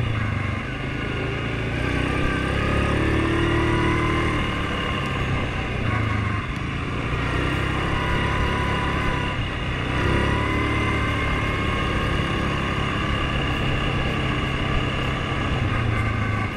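Off-road vehicle's engine running steadily on the move. Its pitch rises twice as the throttle opens and eases between.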